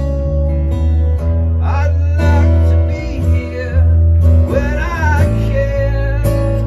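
Acoustic guitar strummed over an electric bass guitar line, with a man singing two short phrases about a couple of seconds apart.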